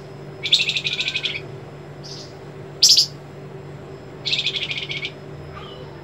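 Caged flamboyan songbird singing: two rapid, sharp, buzzing trills of about a second each, with a short note and one loud sharp note between them. These fast sharp strokes are the 'besetan' and trill ('geter') for which the bird is kept as a song tutor for magpie-robins.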